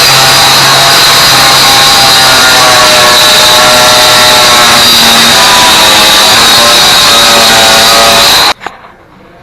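Power saw running steadily at full speed as it cuts through drywall along a marked line, with a high whine; it shuts off suddenly near the end.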